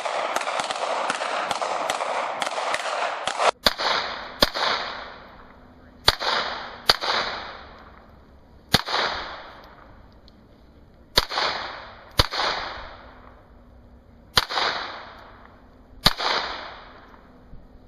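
Semi-automatic pistol fired one shot at a time, about ten shots in all at uneven intervals of one to two seconds, each crack followed by a short echo. The first three and a half seconds hold a dense spell of crackling noise before the single shots begin.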